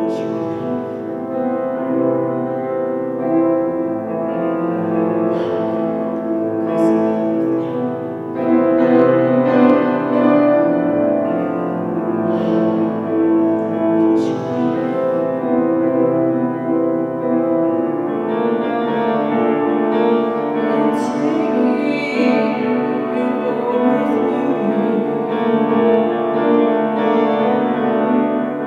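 A woman singing into a microphone over piano, the piano playing sustained chords.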